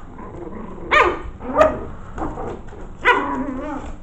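Five-week-old Maltese-mix puppies barking: two short, sharp barks about a second in and half a second later, then a longer bark near the end whose pitch wavers.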